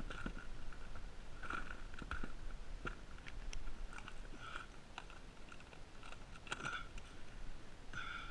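Clear plastic tackle box being handled and opened: a string of sharp plastic clicks and rattles as the lid and latches move and lures shift inside, with short squeaks now and then.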